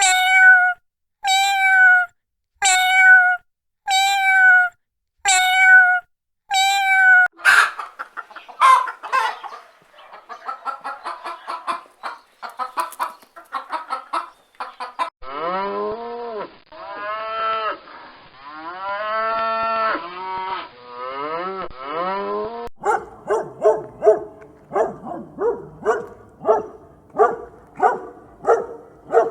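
Recorded animal calls, one kind after another. First come six short pitched calls, evenly spaced about a second and a half apart. Then a busy stretch of quick, clicking and chattering calls, several long rising-and-falling calls, and near the end a run of calls about two a second.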